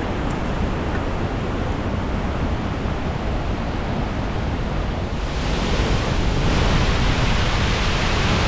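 Large waterfall pouring, a loud steady rush that grows louder and hissier about five seconds in.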